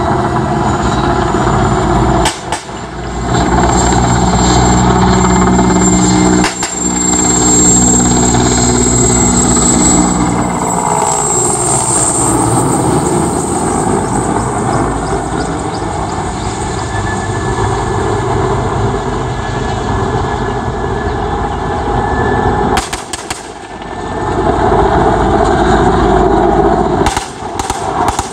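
Mil Mi-8-family transport helicopter flying past close overhead. The steady sound of its rotors and turbine engines is loud and falls in pitch about halfway through as it passes, then carries on as it flies away.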